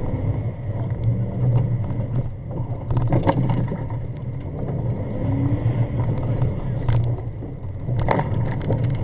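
Jeep Grand Cherokee's engine running hard on a rough dirt off-road track, heard from inside the cabin, its note swelling and easing with the throttle. Sharp knocks come through from the rough ground about three seconds in and again near the end.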